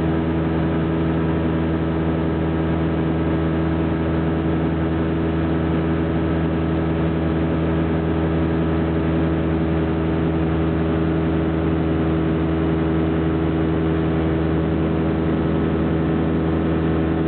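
Light aircraft's piston engine and propeller running steadily at constant cruise power, heard from inside the cockpit.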